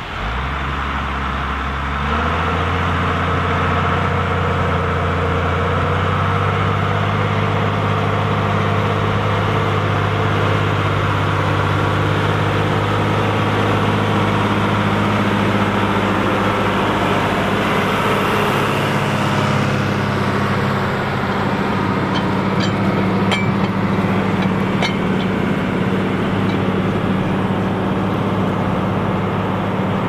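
John Deere 3650 tractor's diesel engine working hard under the load of a plough. Its note rises in two steps in the first couple of seconds, then holds steady and deep. A few sharp clicks come a little past the middle.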